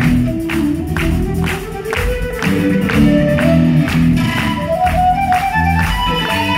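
Live rock band playing: a flute holds and slides between notes over electric bass, keyboard and a steady drum beat of about two strokes a second.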